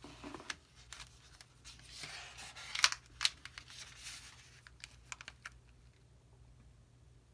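Paper pages of an old booklet being handled and turned: soft rustling and crinkling with a series of sharp clicks and taps, the loudest a little before three seconds in, then a few quick ticks around five seconds.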